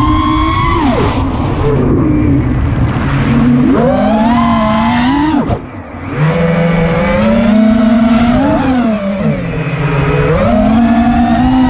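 FPV racing quadcopter's four Lumenier 2206 2350kV brushless motors spinning 5-inch tri-blade props, a high whine that rises and falls in pitch with throttle. The pitch drops about a second in, climbs again near four seconds, cuts out sharply for a moment about five and a half seconds in, then climbs back. Wind rushes over the onboard microphone throughout.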